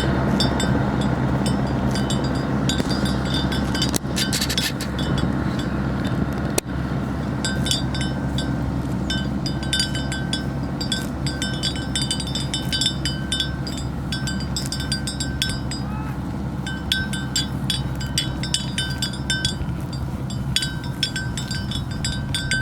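Bells hung on grazing water buffaloes clanking irregularly as the animals move, in uneven clusters of ringing strikes on a few fixed pitches, over a steady low rumble.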